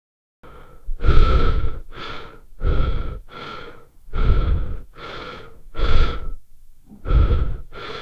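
AI-generated heavy human breathing sound effect made with Stable Audio: about five deep, loud breaths, each a strong rush followed by a softer one, with short pauses between. It cuts off abruptly at the end.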